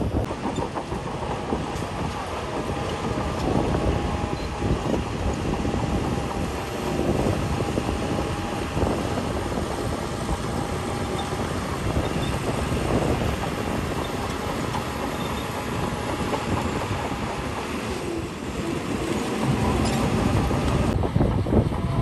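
Crawler bulldozer's diesel engine running steadily under load, with the rhythmic metallic clatter of its steel tracks.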